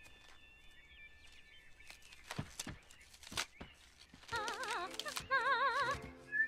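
Faint chirping and a few soft clicks, then about four seconds in a high soprano voice sings wordless notes with a strong vibrato, in two short phrases.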